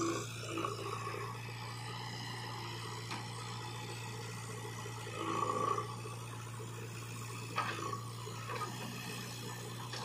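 JCB 3DX backhoe loader's diesel engine running with a steady drone while the backhoe works. A few short louder swells and a sharp knock or two come through, the biggest around the middle as a bucket of soil is dumped into a tractor trolley.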